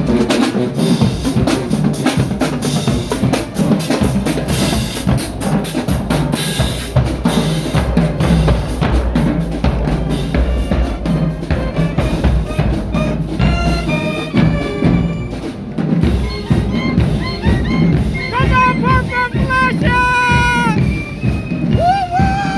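Marching band drumline playing a fast cadence on snare and bass drums. In the second half, pitched voices or calls slide up and down over the drumming.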